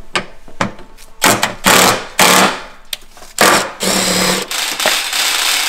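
Blue 24-volt cordless driver run in several short bursts, the longest near the end, backing out the 10 mm bolts that hold a plastic fender-liner bracket.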